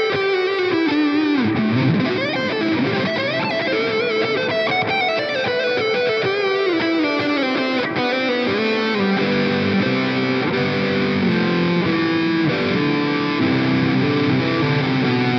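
Electric guitar with a cheap pickup, played through the Amplitube 4 amp simulator. It plays a single-note lead with bends and vibrato, then moves to held notes and chords that step lower over the second half.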